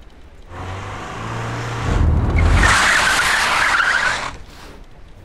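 A car's engine running hard, then its tyres skidding and squealing on the paving for about two seconds as the car slides, cutting off suddenly.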